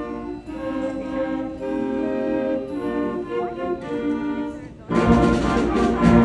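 Orchestral background music with brass, playing held chords; about five seconds in it turns suddenly louder and fuller.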